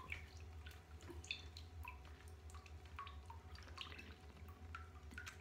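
Water dripping into a filled bathtub: faint, irregular plinks, two or three a second, over a low steady hum.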